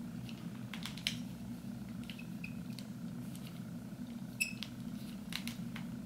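Faint clicks and small handling sounds from a curling iron as a section of hair is wound onto its barrel, over a steady low hum.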